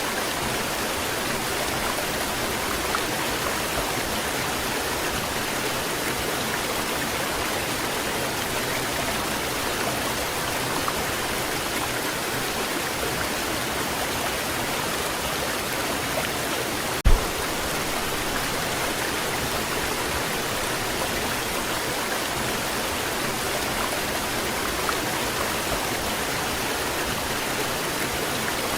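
Waterfall: a steady rush of falling water, even throughout, with one brief low thump a little past halfway.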